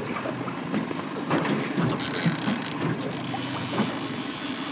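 Fishing reel clicking and whirring as a hooked coho salmon is fought, over the steady hum of the boat's motor.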